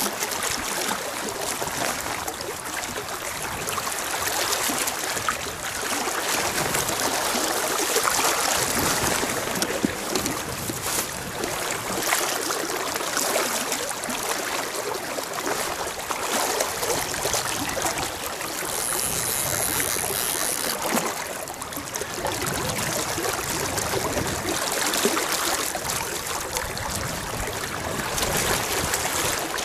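Steady rush of flowing river water around a fishing boat.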